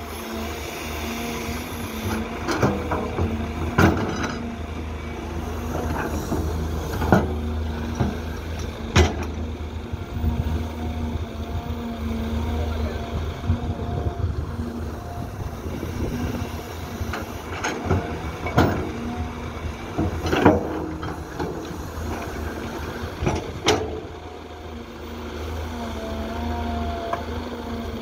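Caterpillar hydraulic excavator's diesel engine running steadily under load, with repeated sharp clanks and knocks as the bucket digs soil and drops it into a dump truck's steel bed.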